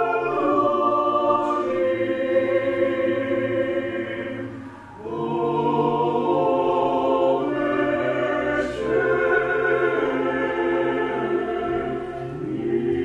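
Mixed choir of women's and men's voices singing Byzantine church chant without instruments, in held chords. There is a short break for breath about five seconds in.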